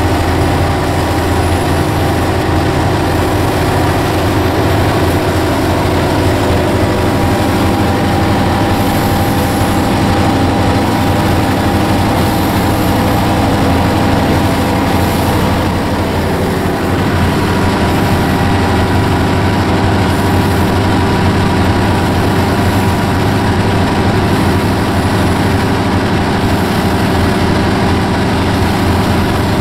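Diesel-electric locomotive engine working hard at full power under a heavy load, heard from inside the cab: a loud, steady drone with little change while the train crawls along.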